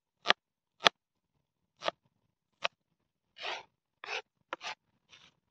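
Kitchen knife chopping a red onion on a plastic cutting board: four sharp knocks about a second apart, then several softer, quicker strokes near the end.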